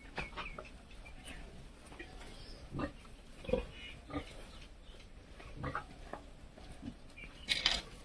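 Piglets grunting now and then, with a louder, higher call near the end.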